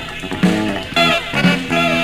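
Ethiopian pop song by a band, with a steady beat and notes that slide down in pitch.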